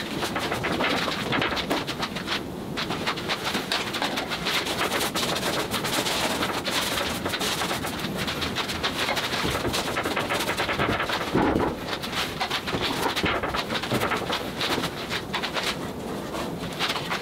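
Paint being scrubbed and dabbed onto a large stretched canvas with a cloth, hand and long-handled brushes: a dense, continuous run of scratchy rubbing and crackling strokes, louder for a moment past the middle.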